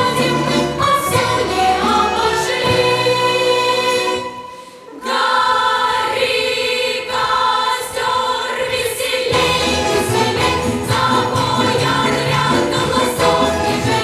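Large children's and youth choir singing in full voice with musical accompaniment. Just after four seconds in the sound drops away for under a second, then the whole choir comes back in.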